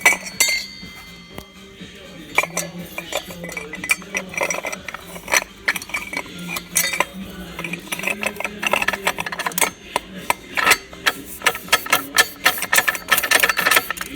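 Steel automatic-transmission parts (clutch drums, hub and centre support of a VW 01P gearbox) clinking and knocking against each other as they are handled and fitted by hand, with a quick run of sharp metallic clinks in the last few seconds.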